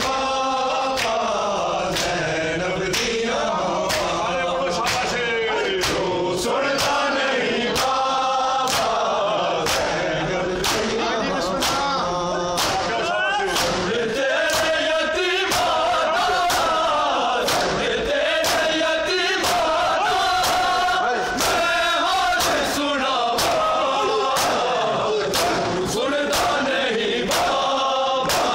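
A large group of men chanting a noha (Shia lament) in unison, with the evenly spaced slaps of open hands beating bare chests in matam, a little under two a second.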